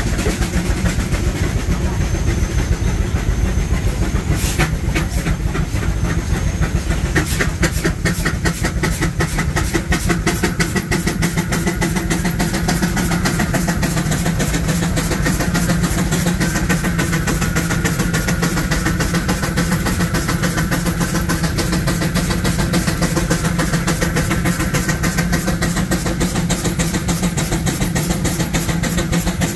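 Steam traction engine running with a steady low rumble; from about seven seconds in, a fast, even beat of sharp exhaust strokes sets in and keeps going.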